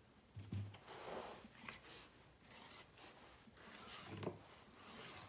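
Hands working clay coils: faint rubbing and scraping as the clay is pressed and smoothed, with two soft thumps, about half a second in and about four seconds in.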